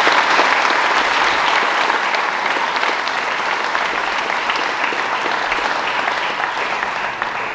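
Audience applauding: many hands clapping in a dense, steady patter that slowly grows quieter toward the end.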